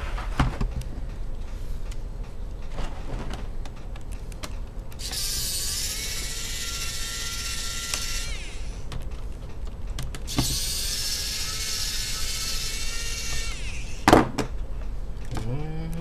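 Cordless electric screwdriver whirring in two runs of about three and a half seconds each, backing out two screws from a laptop's plastic bottom case. Each run winds down in pitch as it stops, and a sharp knock follows near the end.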